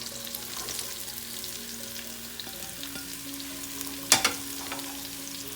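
Onions frying in hot oil in a pan with ginger, garlic and green chilies, a steady sizzle with fine crackling as they are stirred. About four seconds in, a single sharp clatter, the spatula striking the pan.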